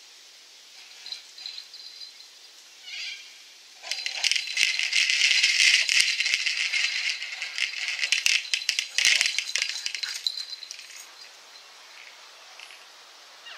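Rapid rattling and clatter from a dog leaping at and tugging on a ball hung on a rope. It starts about four seconds in, runs for about six seconds, then dies away.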